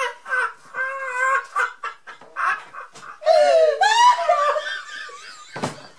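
Several people laughing hard together, with high squealing laughter and breathy gaps, loudest a little past the middle. A single thump near the end.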